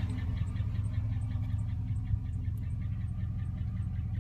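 2007 Chevrolet Silverado 1500 engine idling with a steady, regular ticking over the hum: lifter tick from bad lifters in an engine that has no oil pressure.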